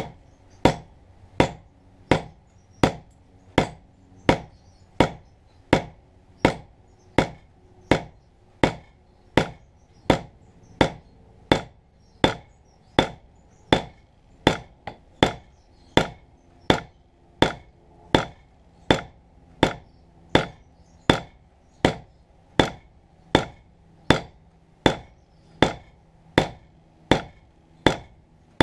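Hammer blows driving a wedge into the top of a hatchet handle in the head's eye, a steady series of sharp taps about every 0.7 seconds, spreading the wood to lock the head tight.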